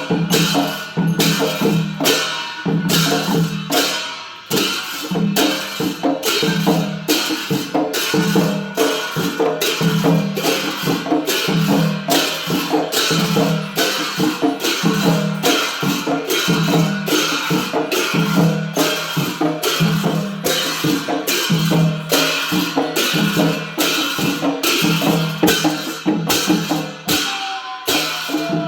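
Traditional Newar percussion music of the kind played for a Lakhe dance: drums and clashing cymbals keeping a steady, driving beat.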